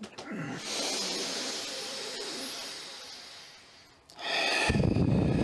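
Deep breathing: one long breath hisses and fades away over about four seconds, then a louder rushing breath with a low rumble starts about four seconds in.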